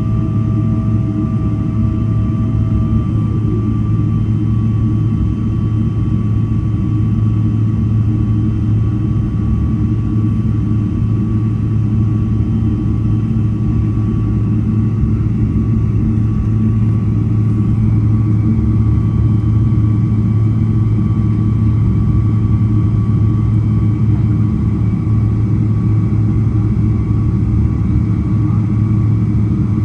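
Cabin noise of a Boeing 777-300ER's GE90-115B turbofan engines, heard from inside near the wing while the aircraft is on the ground: a steady low rumble with several engine whine tones. One tone falls away about three seconds in, and the sound grows a little louder with a new whine about halfway through as the engine setting changes.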